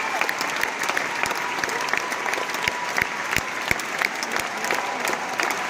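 Large arena concert crowd applauding, a dense mass of handclaps with single claps standing out close to the microphone.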